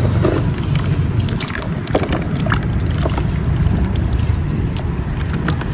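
Wet marble powder being crumbled by hand: many irregular gritty crackles over a continuous low wet squishing.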